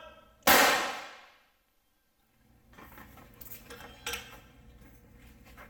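A single 9mm shot from a pressure-test barrel fixture, firing a 124-grain all-copper round about half a second in, its report fading over about a second. A couple of seconds later come light metallic clicks and clinks as the fixture is handled.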